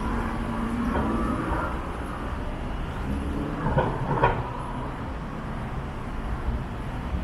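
Street noise: a passing vehicle's steady low rumble, with two short, sharp sounds about four seconds in.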